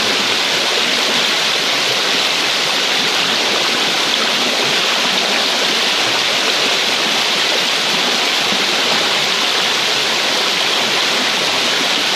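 Shallow, fast-flowing river water rushing steadily around a stone wall and a wading man's legs.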